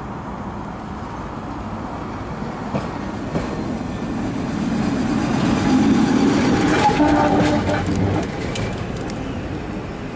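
Double-deck heritage tram approaching and passing close by. Its running noise rises to a peak as it goes past, with wheels clicking on the rails and a brief whine, then eases off as it moves away.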